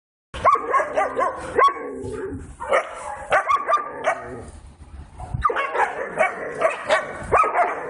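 Several dogs barking and yelping in quick, short calls, with a brief lull about halfway through.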